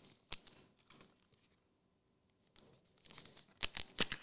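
Trading cards and a foil card-pack wrapper being handled: faint crinkling from about two and a half seconds in, with a few sharp clicks and snaps of card stock, two early on and several close together near the end.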